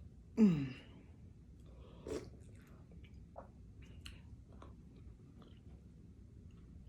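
Close-up eating sounds: wet mouth smacks and chewing of soft food (fufu with banga soup and cow feet), as small scattered clicks. About half a second in, a short hum falling in pitch is the loudest sound.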